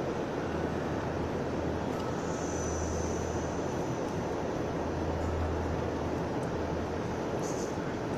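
A vehicle driving, most likely heard from inside: steady road and engine noise over a low hum, with a faint high whistle for about a second a couple of seconds in.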